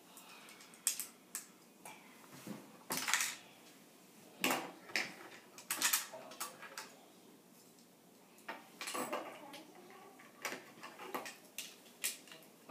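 Plastic Lego pieces and train cars clicking and knocking as they are handled and set down on a table, in an irregular string of sharp clicks.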